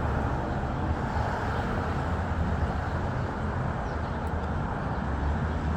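Steady city street ambience: a constant rumble of passing traffic with no distinct events.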